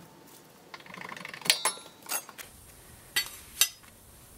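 Steel sprocket and hub being worked off the splined rear axle of a quad by hand: metal rattling and clinking on the splines about a second in, then a few sharp metallic clanks.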